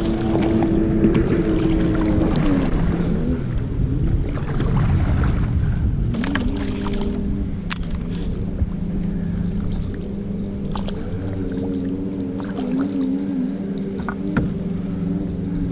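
A motorboat engine hums steadily, its tone dropping a few seconds in and then holding. In the first few seconds, a hooked striped bass splashes at the surface, and scattered clicks follow.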